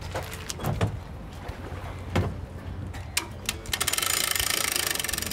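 Boat trailer hand winch ratcheting: a fast, even run of clicks starting a little under four seconds in, after a few scattered knocks and clunks, over a low steady rumble.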